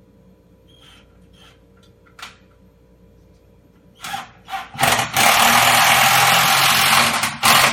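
Electric drill with a Phillips driver bit driving a wood screw through the drawer unit's frame into the cabinet. A few faint clicks come first, then two short blips of the drill, a steady run of about two seconds, and a last short burst near the end.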